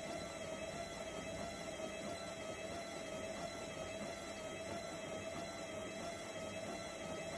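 Washing machine running steadily: a constant whine over an even rushing hum, with no change in speed.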